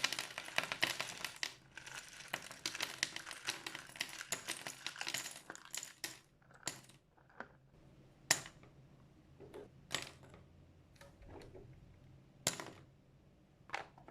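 Small hard plastic parts clicking and rattling as they are handled, a busy run of clicks for about six seconds and then single sharp clicks every second or two.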